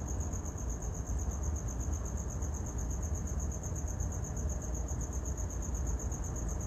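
Cricket chirping outdoors at night: a high, rapidly pulsing trill, several pulses a second, without a break. Underneath is a low rumble.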